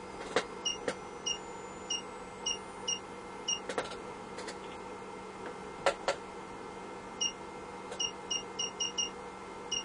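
Short high electronic beeps, some alone and some in quick runs, from bench test equipment as the signal generator's frequency is stepped up. A few sharp clicks come between them, over a faint steady hum.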